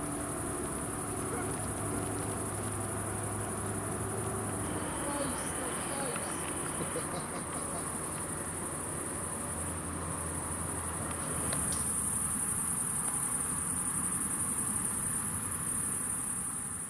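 Crickets chirring in a steady, high-pitched chorus that grows a little louder about two-thirds of the way through.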